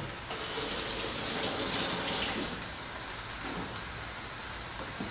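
Kitchen sink tap running water over vegetables being washed, a rush of water for about two seconds that then drops away to a low hiss.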